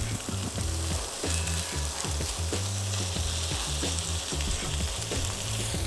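Chopped thick-cut bacon sizzling steadily as it fries in a pan, beginning to render its fat.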